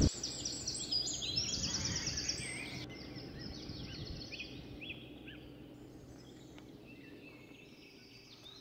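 Small birds singing and chirping in quick repeated high notes, busiest in the first three seconds and thinning out after, over a low, steady outdoor background noise.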